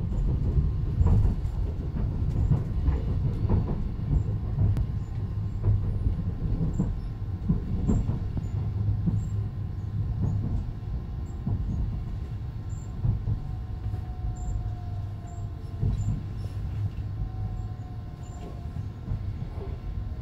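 Sunrise Izumo sleeper train (a 285 series electric train) running, heard from inside the carriage: a steady low rumble with irregular clicks and knocks from the wheels on the track. A faint thin squeal comes in twice in the second half, and the sound grows quieter toward the end as the train slows alongside a station platform.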